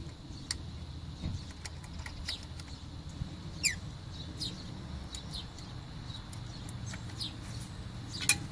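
Small birds chirping on and off, short high notes that slide downward, over a steady low background rumble. A few sharp clicks, about half a second in and again near the end, fit the metal frame of the wheel hoe being handled.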